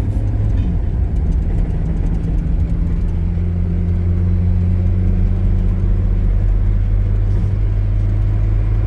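2000 Nissan Frontier XE's KA24DE 2.4-litre four-cylinder engine humming steadily while the truck is driven, getting a little louder about three seconds in; the owner hears it as running just perfectly.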